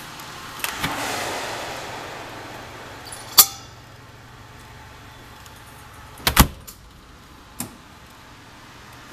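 Stainless-steel door of a Blodgett Mark V convection oven being pulled open with a latch click, then a sharp metallic clink. About six seconds in the door is shut with a loud double bang, followed by a lighter click.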